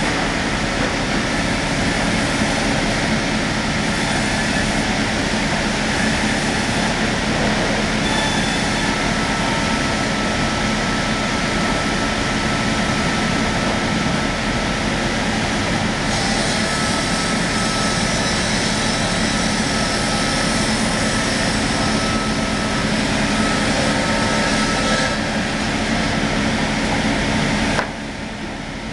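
Automatic reciprocating single-side sawing machine running steadily as it saws a log on its carriage, with a steady motor hum under dense cutting noise. The sound drops quieter about a second before the end.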